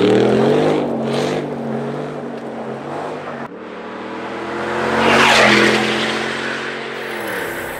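2013 Ford F-150 Raptor's 6.2-litre V8 exhaust, with valved mufflers and the resonator deleted, revving hard as the truck slides through dirt. It breaks off suddenly about three and a half seconds in, and the truck is then heard driving at road speed, loudest with a rush of tyre and wind noise as it goes past about five seconds in, its engine note then dropping.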